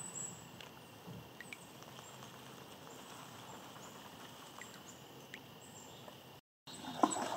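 Quiet outdoor river ambience: a steady faint hiss with scattered short, faint high chirps and ticks. The sound cuts out briefly near the end, then returns louder with a sharp knock.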